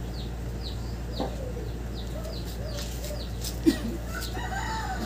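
Birds calling: a quick series of high, falling chirps, about three a second, with a few lower clucking calls over a steady low hum. One sharp knock comes about two-thirds of the way in.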